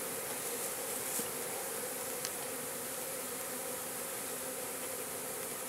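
Many honey bees buzzing around an open hive, a steady hum.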